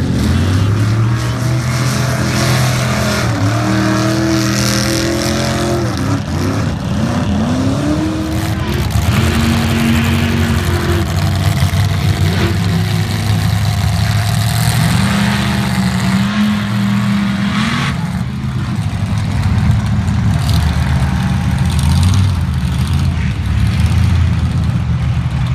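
Engines of lifted four-wheel-drive mud trucks revving hard as they drive through deep mud, the pitch climbing and falling again and again as the drivers work the throttle.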